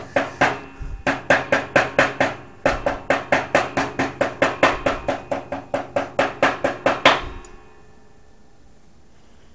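Claw hammer tapping quickly along a steel welding electrode laid on a bench vise, about four to five blows a second with a couple of short breaks, knocking the flux coating off the rod. Each blow rings briefly, and the tapping stops about seven seconds in.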